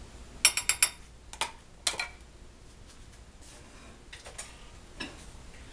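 Light clicks and taps of kitchen utensils and containers: a metal spoon against a bowl and a small plastic cup and its lid set down on the counter. A quick run of four clicks about half a second in, then a few scattered single clicks.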